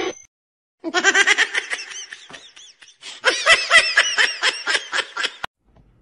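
Laughter: two bouts of rapid, high-pitched ha-ha-ha, the second starting about three seconds in and louder, cut off sharply near the end.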